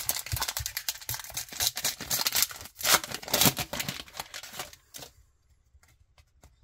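Plastic foil wrapper of a Match Attax trading-card pack being torn open and crinkled by hand: a dense crackling that dies away after about five seconds, leaving a few faint clicks.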